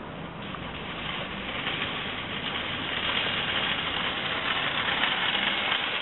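Metal shopping trolley rattling as it is pushed over car-park asphalt, growing louder as it comes closer.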